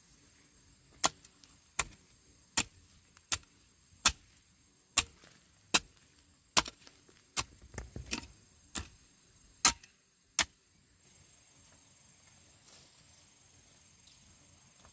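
A series of about thirteen sharp, evenly paced strikes, like a blade chopping or hacking, roughly one every three-quarters of a second, stopping about ten seconds in.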